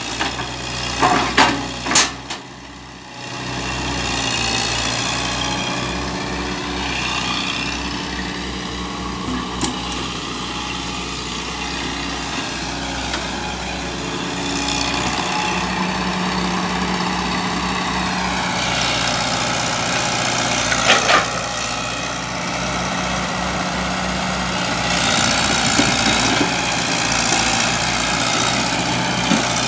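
Hydraulic excavator's diesel engine running steadily as the machine works in deep mud while bogged down, with a few sharp clanks in the first two seconds and another about 21 seconds in.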